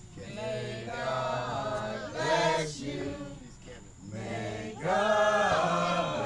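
A group of people singing together in long held notes, loudest near the end.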